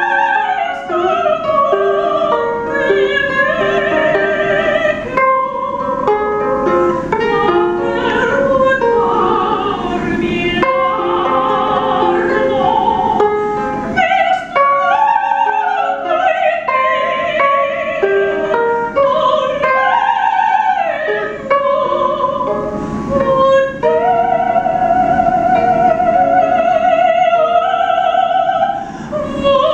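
Female operatic soprano singing, moving through quick changing notes and sustained notes with vibrato, to her own ukulele strummed as accompaniment. A long held note with vibrato comes near the end.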